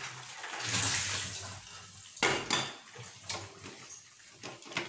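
Boiled goat intestines poured with their liquid into a pan of simmering masala gravy, making a wet splashing slosh. About two seconds in there is a sharp metal clank, followed by a ladle scraping and clinking against the aluminium pan as the tripe is stirred in.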